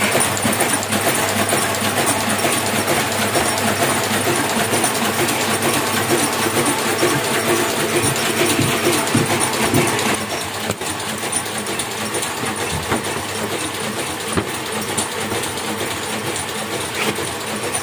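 Hamada 600 sheet-fed offset printing press running steadily, a dense mechanical clatter from its feeder and rollers, a little quieter from about ten seconds in.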